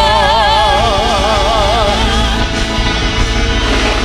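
Live gospel band with a singer holding the last word "God" on one long note with wide vibrato, fading about two seconds in as the band plays on.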